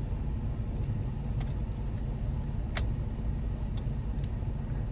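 Jeep Wrangler running with the air conditioning on, heard inside the cabin as a steady low rumble, with a few faint clicks of plastic parts being handled.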